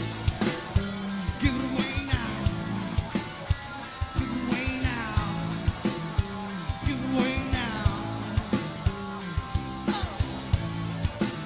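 Live rock band playing: singing over electric guitar, bass and a steady drumbeat.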